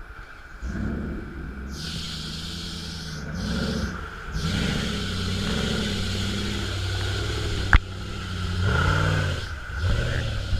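Off-road 4x4 engine revving up and down over and over, with stretches of rushing hiss and a single sharp crack about three-quarters of the way through.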